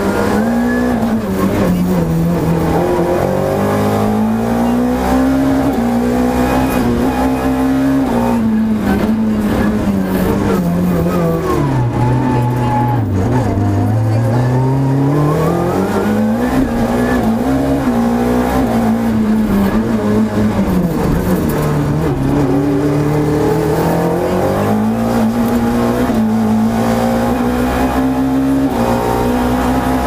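Renault Clio FA7 rally car's four-cylinder engine at full effort, heard from inside the cabin, its pitch climbing and falling as it accelerates, shifts and brakes. About twelve seconds in it drops sharply to a low pitch as the car slows, then climbs again, with another dip a little past twenty seconds.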